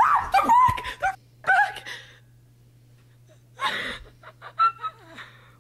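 A person's high, wavering cries and gasps in the first two seconds, then a pause, a sharp breath-like rush and a few short vocal sounds.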